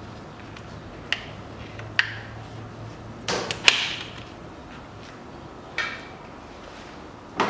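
Scattered sharp clicks and knocks of hand work on radiator hoses and their clamps in a car's engine bay. The loudest is a brief scraping rattle about three and a half seconds in.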